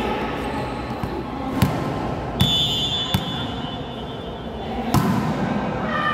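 Volleyball bounced on the gym floor a few times before a serve, then struck hard by the server's hand about five seconds in, the hit echoing in the hall.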